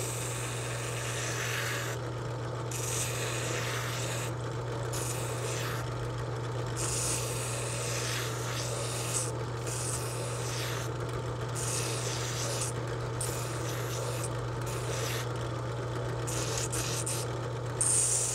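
Spinning sanding drum with a steady motor hum, while a sycamore lure blank is pressed against the sleeve. The sanding hiss comes and goes in short repeated passes as the blank is turned, with the loudest pass near the end.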